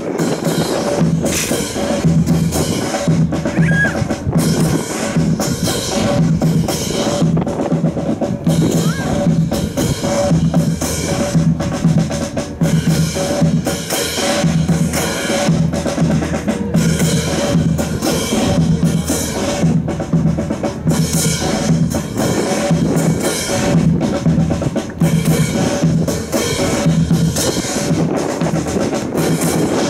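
Military band playing a march, with bass and snare drums beating a steady marching rhythm over sustained band tones.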